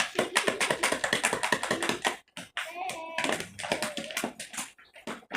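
Something being shaken hard by hand, a rapid run of quick taps and rattles for about two seconds. Then a child's voice humming or vocalising.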